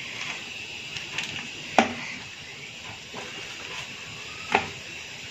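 Crinkling aluminium foil and soft handling noises as hands pull apart a steamed mutton leg, with two sharp clicks about three seconds apart over a faint steady hiss.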